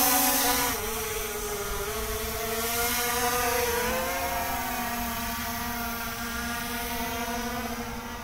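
SJRC F22 quadcopter's motors and propellers whining steadily just after takeoff, the pitch wavering a little, dropping in loudness about a second in and then slowly fading as the drone flies off.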